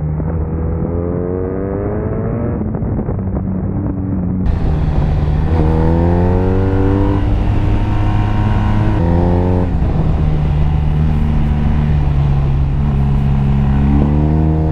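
BMW R1250RS boxer-twin motorcycle engine under hard acceleration, the revs rising and dropping back several times as the gears are shifted. About four seconds in the sound turns from muffled to much brighter as the recording switches from one onboard camera's microphone to another.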